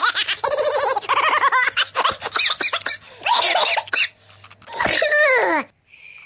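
High-pitched voice laughing and giggling in quick bursts, ending about five seconds in with a long falling squeal.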